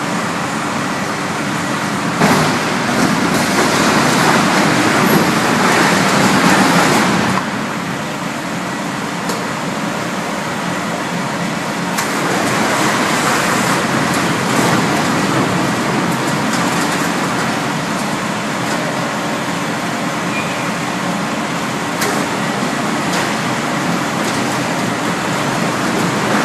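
Refrigerator recycling plant machinery running with a steady, loud mechanical noise. It grows louder from about two seconds in to about seven seconds, and a few sharp knocks come later.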